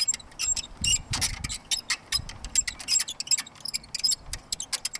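Rapid, irregular clicking as the leveling crank on a Cub 194 moldboard plow is turned by hand to level the plow bottom, with a dull knock about a second in.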